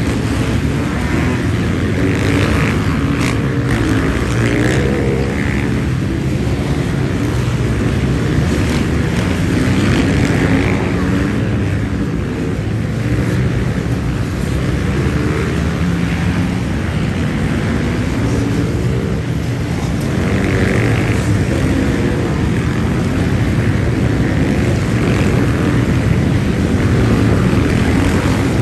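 A steady stream of off-road race motorcycles passing one after another, many engines overlapping in a continuous loud din, with single bikes rising and falling in pitch as they accelerate past.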